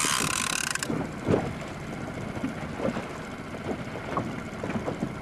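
Boat engine idling under wind noise. In the first second a short hiss comes from the fishing reel's drag giving line to a hooked amberjack pulling on the bent rod.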